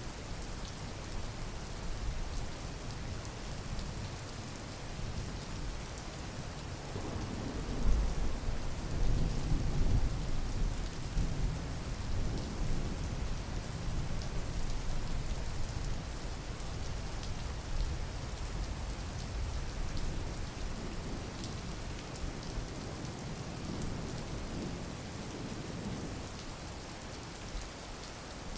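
Steady rain falling, with a roll of thunder rumbling in about a quarter of the way through and fading away over several seconds.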